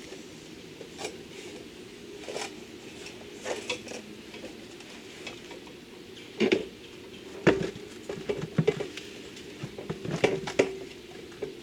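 Hard plastic knocks and clatter from the new pool sand filter tank and its fittings being shifted and reseated. The knocks come irregularly, with the loudest ones in the second half.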